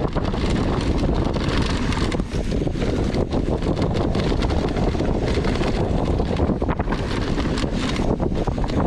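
Wind rushing over the microphone of a camera riding along on a downhill mountain bike, with a constant clatter of short knocks and rattles as the bike runs over rough trail.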